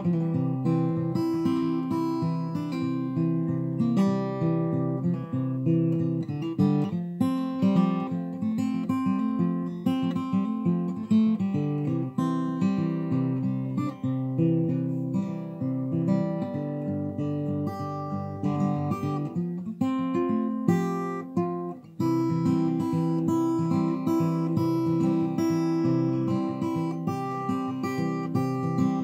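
Background guitar music, plucked and strummed notes and chords, with a brief drop in loudness about three quarters of the way through.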